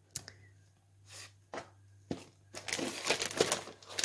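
Plastic tortilla bag crinkling and rustling as a tortilla is drawn out of it: a few separate rustles, then denser crinkling from about two and a half seconds in.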